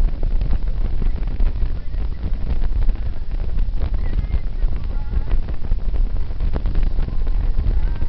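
Wind buffeting the microphone on a moving motorcycle, over a steady low rumble of engine and road noise at highway speed.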